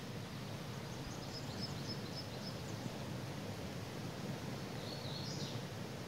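Steady wash of a creek's flowing water, with a songbird calling twice: a quick run of short high notes in the first half, then a brief up-and-down phrase near the end.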